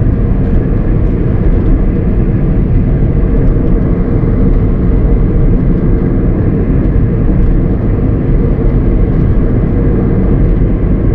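Car driving along: a loud, steady rumble of engine and road noise.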